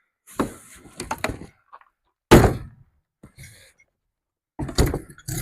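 Knocks and thuds from the skid steer's shipping crate being opened and its contents pulled out: a few sharp knocks in the first second and a half, one heavy thud about two and a half seconds in, and a cluster of knocks near the end.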